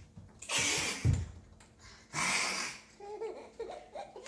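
A baby laughing and giggling in short wavering bursts in the second half. Before that come two loud breathy, hissing bursts about a second and a half apart, with a dull thump just after the first.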